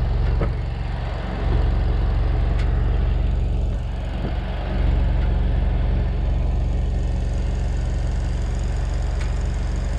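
An engine idling steadily, a low even drone with a fine regular pulse, dipping briefly twice in the first few seconds.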